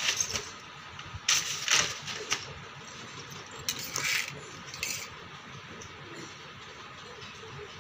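Short bursts of paper rustling and scuffing as a toddler handles an open notebook on the floor. The loudest burst comes a little over a second in, with smaller ones up to about five seconds in.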